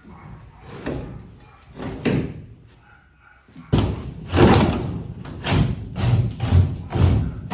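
A series of knocks and heavy thumps, a few faint ones at first, then louder and coming about twice a second from about halfway through.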